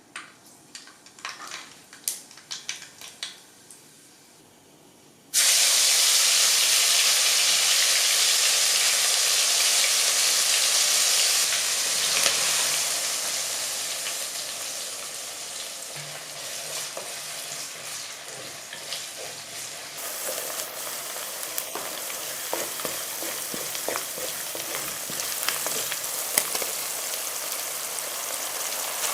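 A few light knocks, then a sudden loud sizzle about five seconds in as food goes into hot oil in a pan. It keeps frying with a steady hiss that eases off a little, with crackles and clicks from stirring.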